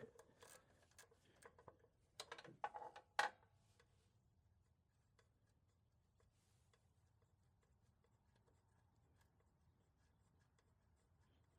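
A ratchet on the oil drain plug makes a few scattered metal clicks and knocks in the first few seconds, the loudest about three seconds in, as the plug is worked loose. Near silence follows.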